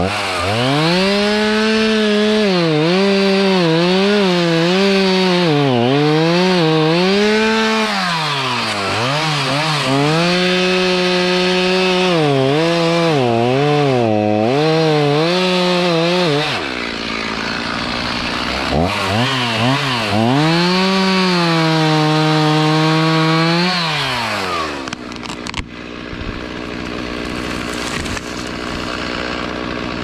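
Two-stroke gas chainsaw at full throttle cutting into a dead spruce trunk, its high engine note dipping and recovering again and again as the chain bogs in the wood. The revs drop off about 16 seconds in, climb again for a steady cut from about 19 seconds, and fall back near 24 seconds.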